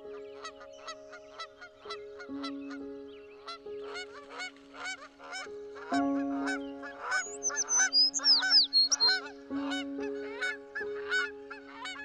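Background music: sustained chords that change every second or so, under a stream of short quick notes, with high bird-like chirps joining about seven seconds in.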